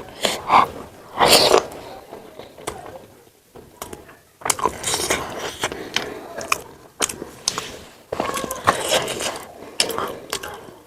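Close-miked mukbang eating sounds: momos being chewed with many wet clicks and smacks, and a loud noisy burst of breath or slurp a little over a second in.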